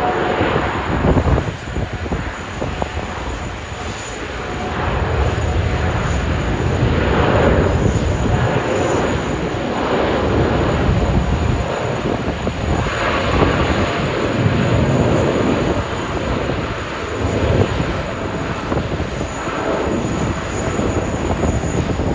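Jet engines of a Boeing 787-9 airliner at takeoff power during its takeoff run and climb-out, a loud, continuous noise that swells and eases in loudness.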